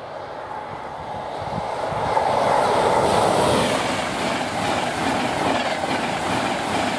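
A Virgin Trains East Coast diesel High Speed Train (Class 43 power car and Mark 3 coaches) passing at speed, growing louder as it approaches and loudest about two to three seconds in. Then a steady rush and rumble of the coaches' wheels on the rails as the carriages go by.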